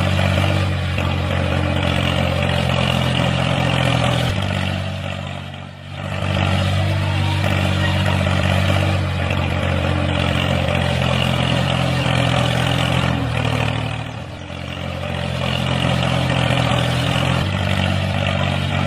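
Tractor engine running steadily, easing off briefly about six seconds in and again around fourteen seconds before picking back up.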